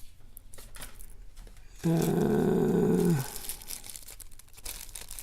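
A low, drawn-out vocal sound of steady pitch lasting about a second and a half, amid faint rustling and crinkling of package wrapping.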